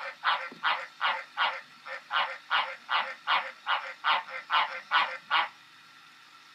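Green tree frog croaking: a fast, even run of short croaks, about three a second, that stops about a second before the end.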